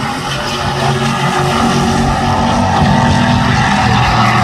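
Stadium Super Truck racing trucks' V8 engines running hard as several trucks race past, a steady engine drone that grows a little louder after about a second.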